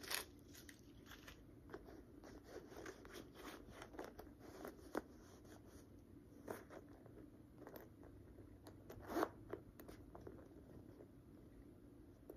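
Faint handling of a small leather handbag: the metal zipper of its front pocket is worked open and shut, with light rustling of the tissue-paper stuffing and scattered small clicks. The strongest scrape comes about nine seconds in.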